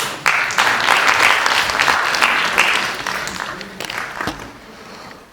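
Audience applauding, a dense patter of many hands that dies away over the last second or two.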